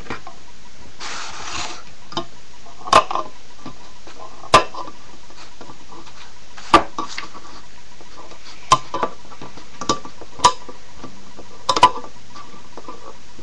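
Pocket knife's can-opener blade punching and prying its way around the rim of a tin can: a series of sharp metallic clicks every second or two, with a short scraping sound about a second in.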